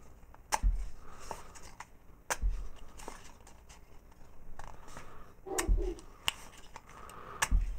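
Paper raffle tickets being creased and torn off a strip by hand: several sharp, short paper snaps a second or two apart, most with a soft thump.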